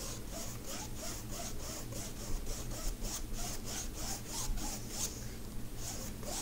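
Paintbrush scrubbing quickly back and forth over the faceted resin drills of a diamond painting, spreading sealer down between the drills: an even run of scratchy strokes, about three a second.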